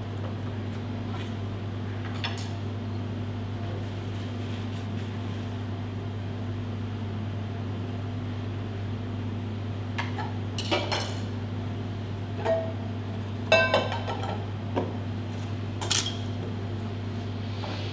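A handful of light clinks and taps of dishes and utensils on a steel counter, in the second half, over a steady low hum.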